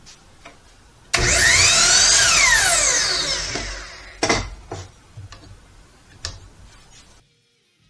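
Kobalt 12-inch sliding miter saw's motor switched on about a second in, its whine rising as the blade spins up, then falling as the trigger is released and the blade winds down. This is a test run of the freshly repaired trigger switch. A few sharp knocks follow.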